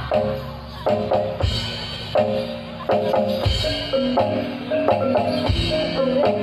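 Live Javanese gamelan music for a jaran kepang dance: struck metallophones ring a steady run of short notes over drum strokes, with deep drum hits about three and a half and five and a half seconds in.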